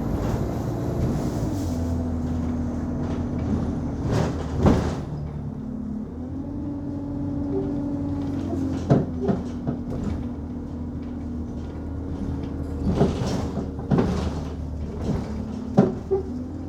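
Inside an Alexander Dennis Enviro 200 Dart single-deck bus on the move: the engine runs with a steady hum, broken by about five sharp bangs from underneath at irregular intervals. The passenger suspects an axle issue or something else needing repair.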